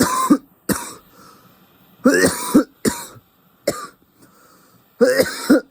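A man coughing hard in a fit of repeated coughs, some coming in quick pairs, after inhaling a cannabis dab: his throat is irritated by the concentrate vapour.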